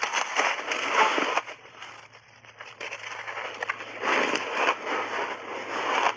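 Crunchy refrozen block ice being bitten and chewed close to the microphone, in bursts: dense crunching for about a second and a half, a quieter spell of small crackles, then more crunching from about four seconds in.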